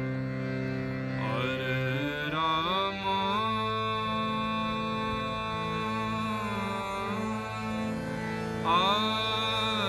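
Harmonium playing sustained drone chords, with a melody that slides between notes entering over it about a second in. The melody drops out around seven seconds and returns near the end. Indian devotional-style music.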